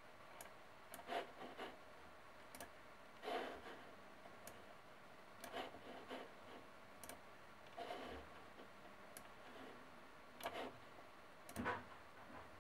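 A dozen or so quiet computer-mouse clicks at irregular intervals, some of them softer and more drawn out, like the mouse being rubbed or shifted on its pad.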